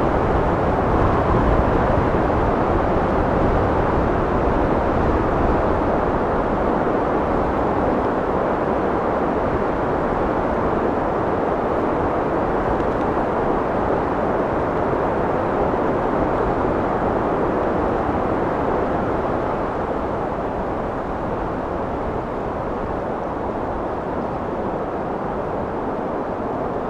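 Wind blowing steadily, a full rushing noise without gusts or breaks that eases off slightly in the last few seconds.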